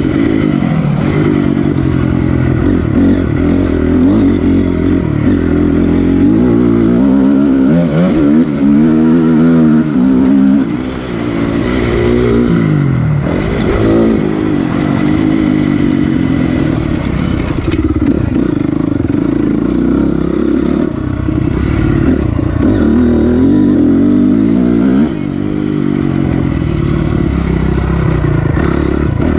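Honda CRF250R dirt bike's four-stroke single-cylinder engine, ridden hard: revs rising and falling as the throttle opens and closes, with a brief letting-off about eleven seconds in and again near the end.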